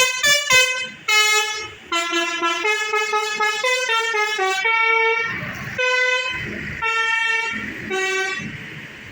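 Basuri 'telolet' multi-tone horn playing a tune: a run of held, reedy notes stepping up and down in pitch, stopping a little after eight seconds. A low rumble sits under the later notes.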